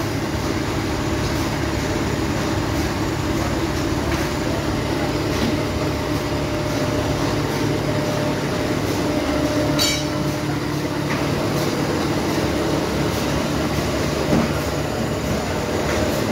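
Steady hum and rumble of shoe-factory machinery running, with a sharp click about ten seconds in.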